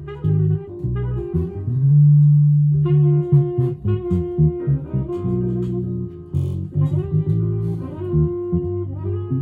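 Headless electric guitar with flatwound strings playing a slow jazz melody, single plucked notes ringing over held low notes.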